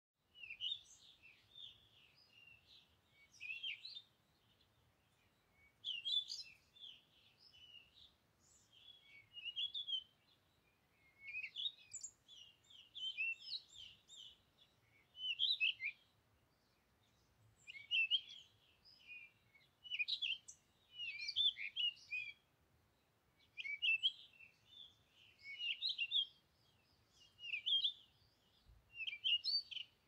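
A small garden songbird singing short, rapid twittering phrases of high notes, each a second or two long, repeated with brief pauses between them.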